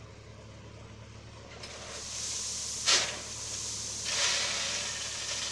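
Diesel dump truck's engine running with a steady low hum while its body tips up to unload. Hissing builds from about a second and a half in, with a sharp loud hiss near three seconds and another surge of hiss about a second later.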